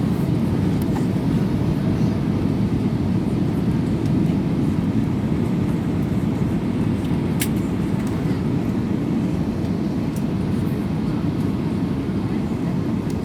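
Steady low rumble of an Airbus A320neo heard from inside the passenger cabin, with one sharp click about seven seconds in.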